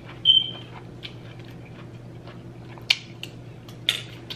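A metal fork scrapes a metal sheet pan with a short high squeak, followed by chewing with a few sharp mouth clicks, over a low steady hum.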